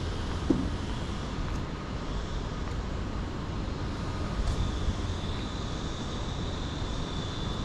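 City street ambience: a steady wash of road traffic noise, with a faint thin high tone coming in about halfway through.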